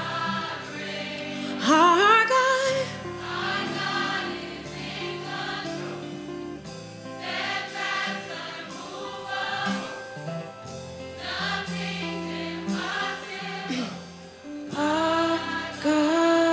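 Live gospel worship music: a woman leads the song, with backing singers joining in over a band with acoustic guitar. About two seconds in, her voice slides up in a loud run.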